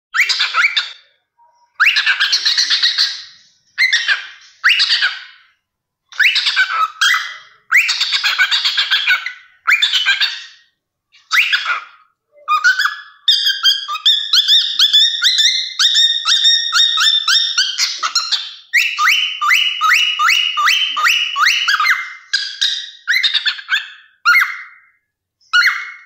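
Cockatiel calling: a string of harsh separate calls, then from about halfway through a rapid chattering run of short repeated notes lasting several seconds, ending in a few more short calls.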